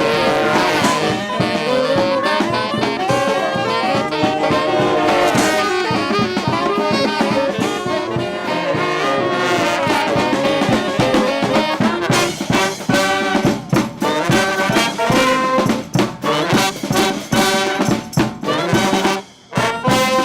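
Second-line street brass band playing: trumpets, trombones and saxophones over drums. The drum hits come to the fore in the second half, and the whole band stops for a moment just before the end.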